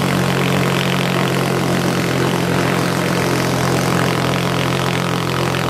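Electric Gatling-type minigun firing one long continuous burst, its shots coming too fast to hear apart and merging into a steady, loud, pitched drone.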